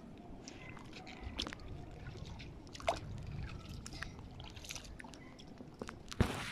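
Shallow seawater sloshing and splashing under wading steps across a reef flat, in irregular splashes. One sharper splash comes about three seconds in and the loudest near the end.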